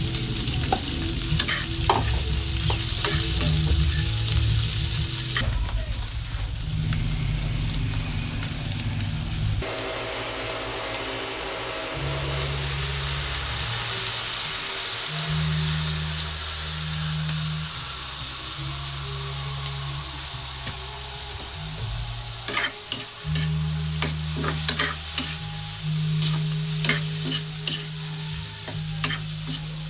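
Pork offal for adobo sizzling in a hot pan while being stirred, with scattered sharp clicks of the utensil against the pan. The sizzle is loudest in the first five seconds.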